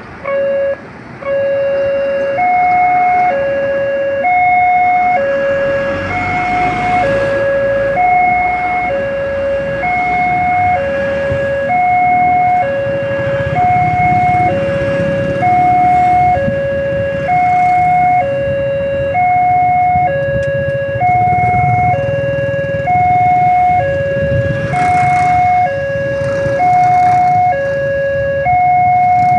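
Railway level-crossing warning alarm sounding a steady two-tone high-low signal, switching tone about once a second; it starts about a second in and signals that a train is approaching and the barriers are closing. Road traffic engines run underneath.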